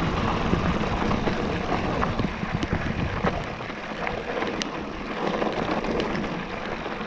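Wind rushing on the microphone and mountain-bike tyres rolling over a dry dirt trail, with scattered ticks and rattles from gravel and the bike. The low rush eases about halfway through as the bike slows.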